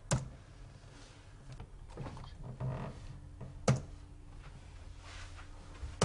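Quiet room with soft taps of typing on a laptop keyboard and a few sharper knocks, the loudest just after the start and a little past halfway. A door handle clicks at the very end.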